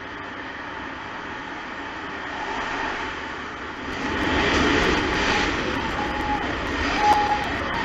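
Road traffic in a tunnel: a steady rumble of cars and trucks going by, growing louder from about four seconds in.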